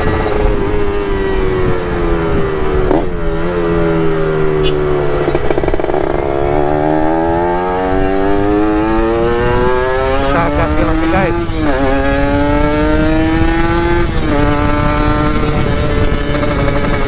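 Ported Yamaha RX-King two-stroke single running while riding: the engine note falls as the bike slows, then climbs as it accelerates, with brief breaks at gear changes a few seconds in, around eleven seconds, and near the end. Wind rushes over the microphone underneath.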